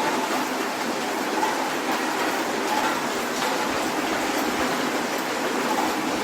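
Soft rain falling steadily: an even hiss with no pauses or changes.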